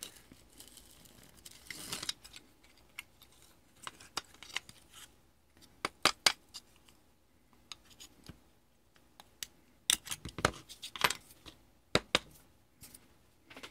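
A small metal tool scraping and clicking against battery cells and a plastic battery holder as a calculator's battery pack is pried apart. There is scraping in the first couple of seconds, then scattered sharp metallic clicks and taps, most of them about six seconds in and again around ten to twelve seconds.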